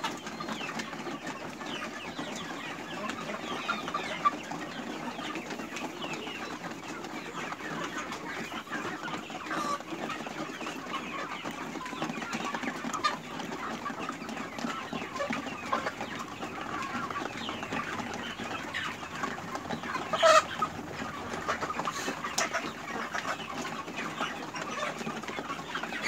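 A flock of about eight-week-old chickens clucking and cheeping continuously as they feed, many short calls overlapping. About twenty seconds in, one call stands out louder than the rest.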